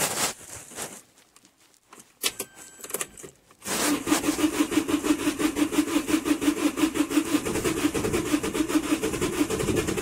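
Starter motor cranking the Vauxhall Combo's common-rail diesel engine from about four seconds in, with a quick even beat of compression strokes, and the engine not catching: a no-start, though it almost wants to start. Before that, a few faint clicks.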